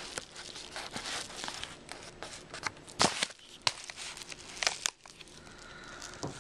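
A knife slitting open a paper bubble mailer: the kraft paper crinkles and tears, with many sharp crackles. The loudest snap comes about three seconds in, and it goes quieter for the last second or so.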